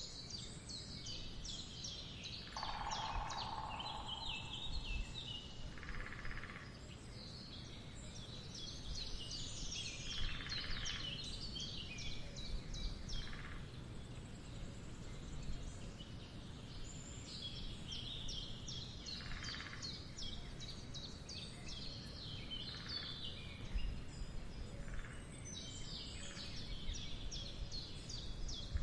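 Woodland bird ambience: songbirds singing and chirping over and over throughout, with a woodpecker drumming in short bursts every few seconds, over a steady low rumble.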